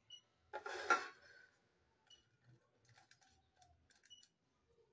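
Dried omena being pushed around and picked through by hand on a plate: a louder brief clatter about half a second in, then faint scattered clicks and rustles of the small dry fish.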